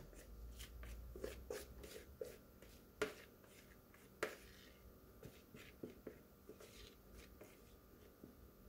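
Faint scraping and light clicks of a silicone spatula working thick batter out of a mixing bowl, with two sharper clicks about three and four seconds in.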